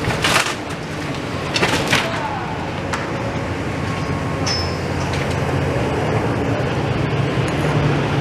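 A heavy engine running steadily, with a few sharp knocks in the first three seconds.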